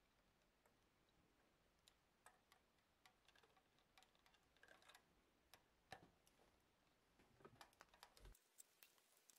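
Faint, irregular clicks and ticks of pliers gripping and bending twisted 1.2 mm aluminium wire strands into loops, with the wire tapping on wood; the loudest click comes about six seconds in.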